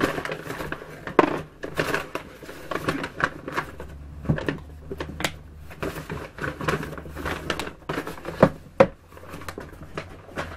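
Paper shopping bag rustling and crinkling as items are taken out of it, with a few sharp clicks and knocks among the rustle.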